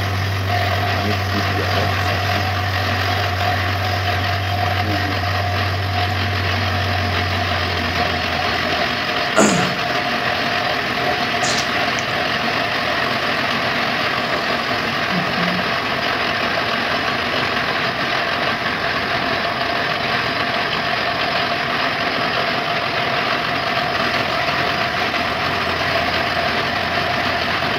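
Truck-mounted borewell drilling rig running steadily as it drills, blowing muddy water and cuttings up out of the bore as it reaches water. A low hum drops out about eight seconds in, and a single sharp knock comes about a second later.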